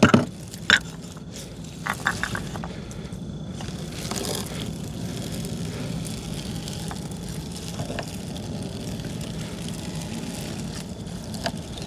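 Small boat engine running steadily at low speed. Sharp knocks and crackling scrapes come in the first couple of seconds, as a gill net is hauled over the side of the boat.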